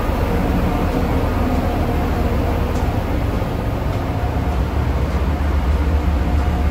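Steady drone of a ship's engine-room machinery running, mostly a low rumble with a few faint steady tones above it.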